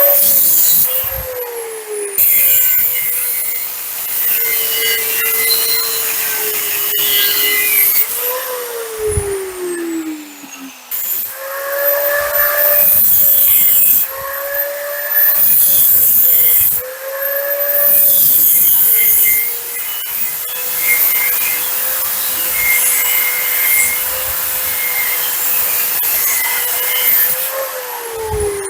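Angle grinder with a cut-off wheel cutting small pieces of steel. The motor whine sags under load, with bursts of hissing cutting noise. It spins down with a falling whine about a second in, again around eight seconds, and near the end.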